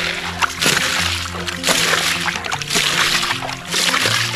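Water sloshing and splashing as a hand washes out the bed of a plastic toy dump truck in shallow muddy water, in repeated strokes about once a second. Background music with held notes plays throughout.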